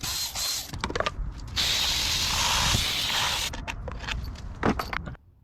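Hissing spray in several spells as a clogged outboard carburettor's idle jets and fuel screen are cleaned, with a few sharp clicks and knocks between the spells.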